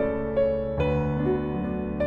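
Background piano music: a gentle melody of sustained notes and chords.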